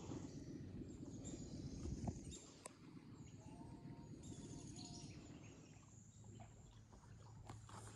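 Faint birds calling over quiet open-air ambience, with a short run of repeated chirping notes about three to five seconds in. A low rumble sits under the first two seconds, then fades.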